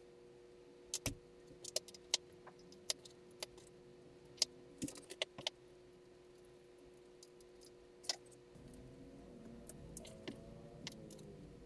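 Light clicks and clinks of metal electrode plates, wires and clips being handled, scattered and irregular. A faint low whir sets in about eight seconds in.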